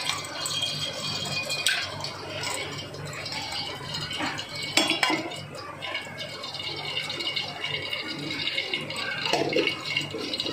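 Cooking oil poured from a steel ladle into an aluminium pan, then heating on the burner with a faint, steady crackle. A few sharp clinks of the ladle against the pan, and a steady low hum underneath.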